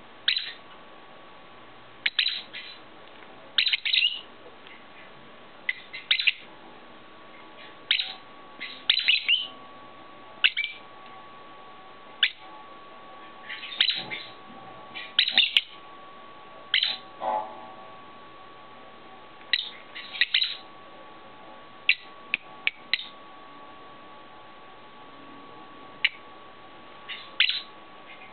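Pet lovebirds giving short, sharp, high chirps in quick clusters every second or two, over a faint steady whine.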